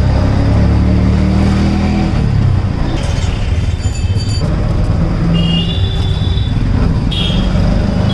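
Motor vehicle engine running with a steady low drone and road noise while riding through city traffic, strongest in the first two seconds. A few short high tones come in the second half.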